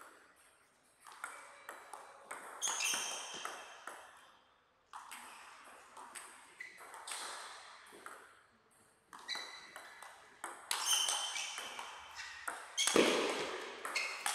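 Table tennis ball being hit back and forth in rallies: quick sharp clicks off the bats and the table, each with a short high ring. The hits come in runs with brief gaps between points, and are densest and loudest near the end.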